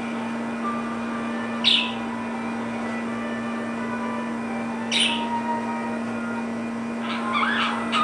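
Budgerigars chirping: two sharp, falling chirps a few seconds apart, then a run of quick chirps and warbling near the end, over a steady low hum.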